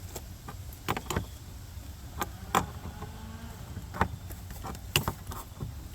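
Scattered sharp clicks and knocks as plumbing fittings on a rinse station are handled and unscrewed by hand, about eight in all, irregularly spaced.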